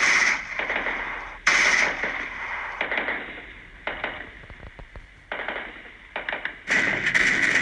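War sound effects of gunfire: a run of bursts of rapid shots, each starting suddenly and fading away, with the loudest bursts about a second and a half in and near the end.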